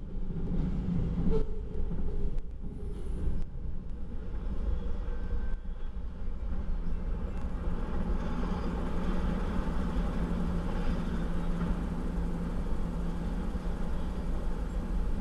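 Double-stack intermodal freight cars rolling past, with a few sharp clanks in the first seconds as the last cars clear. A steady low rumble carries on afterwards.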